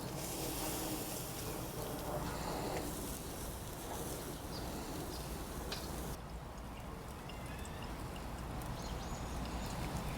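Food sizzling faintly on a hot grill: a steady high hiss that drops away about six seconds in, leaving a few faint ticks.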